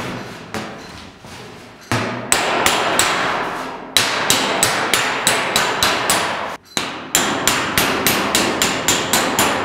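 Panel-beating hammer striking a steel car bonnet over a dolly held underneath: rapid ringing metal blows, about three to four a second, in runs broken by brief pauses. It is knocking down the high spots left by welded-up rust holes to relieve the stress from the welds.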